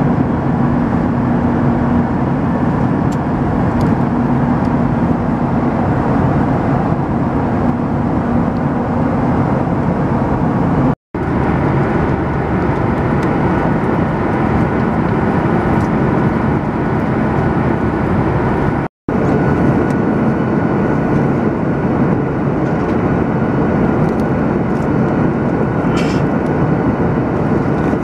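Steady roar of a Boeing 737-900ER's passenger cabin in cruise flight: jet engine and airflow noise, with a faint steady hum in the first part. It cuts out abruptly for a moment twice, about eleven and nineteen seconds in.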